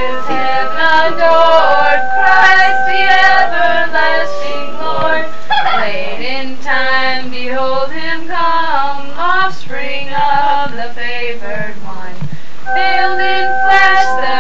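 Amateur home singing of a Christmas carol with instrumental accompaniment. Held instrument notes are heard at the start and again near the end, and the voices sing most strongly through the middle.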